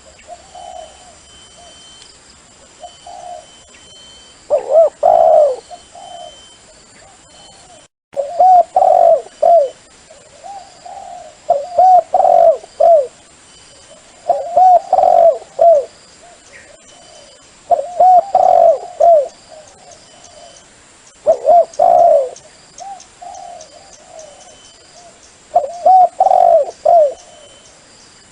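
Dove cooing: a phrase of several short, rapid coos repeated about every three and a half seconds, a dove call used to lure wild doves.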